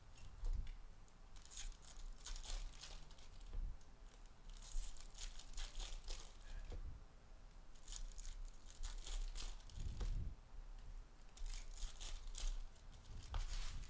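Foil trading-card pack wrappers being torn open and crinkled, in four bursts of crackly tearing a few seconds apart, with a few soft thumps.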